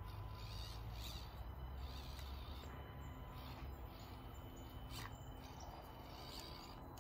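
Faint woodland ambience: insects and birds calling in short chirps every second or so, over a steady low rumble.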